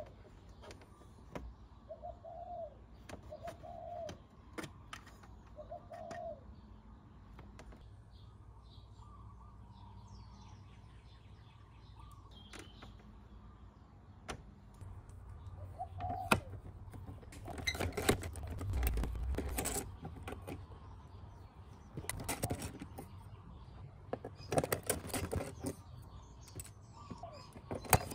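A dove cooing in a few short notes, mostly in the first several seconds, over scattered clicks and clatter of hand work on the scooter's plastic trim fasteners and screws. The clicking gets busier and louder in the second half.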